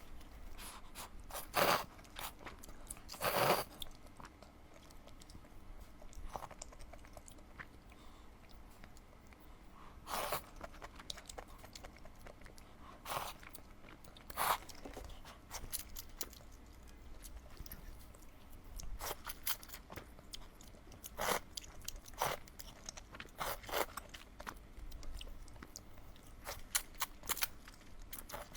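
Close-miked eating: a person chewing, with irregular crisp crunches and clicks from the mouth every second or few.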